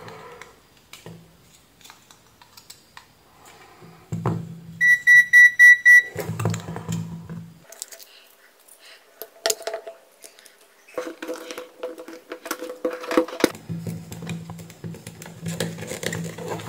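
Digital multimeter's beeper: a quick run of about six short, high beeps lasting about a second, around five seconds in. Small clicks and handling noises from battery cells and tools come before and after.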